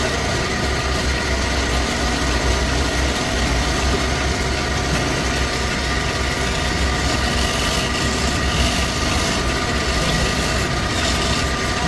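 A machine motor running steadily: a low hum with a few steady higher tones above it.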